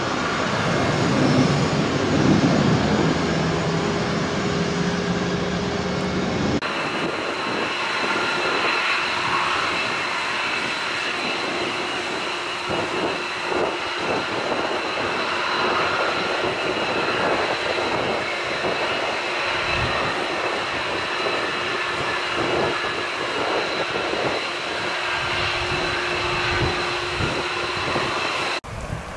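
Twin-engine Airbus A330 jet climbing away after takeoff, a dense engine rumble. About six and a half seconds in it cuts to a taxiing F-22 Raptor fighter, its jet engines giving a steady high-pitched whine at low power.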